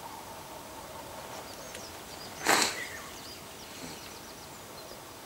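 Faint, high, thin chirps of small birds calling on and off. About two and a half seconds in there is one short, loud whoosh of rushing noise.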